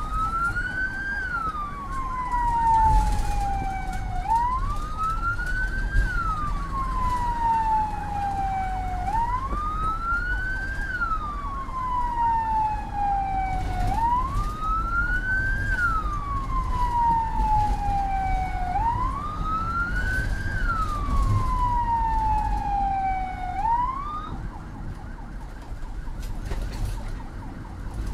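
Ambulance siren on a slow wail, rising quickly and falling more slowly, about every five seconds, over the low rumble of a moving vehicle heard from inside its cabin. It cuts off partway through a rise near the end.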